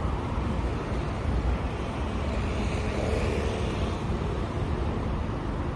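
Steady low rumble of wind buffeting the microphone over faint outdoor street ambience.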